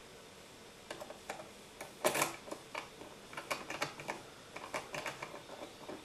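Light metallic clicks and ticks as a bump key is slid into a Ruko Flexcore euro profile cylinder and worked in the keyway, the pins clicking over the key's cuts. A louder click comes about two seconds in.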